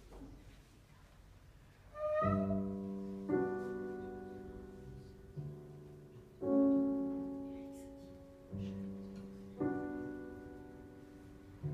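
Piano playing slow, sustained chords, beginning about two seconds in; the chords come in pairs about a second apart, each left to ring and fade.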